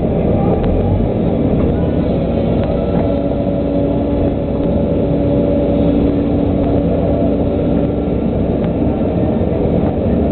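Volvo EC140 LC excavator's diesel engine running under load as the hydraulics work the bucket through a load of peat and swing it to the truck. A steady whine sits over the engine from about three to eight seconds in.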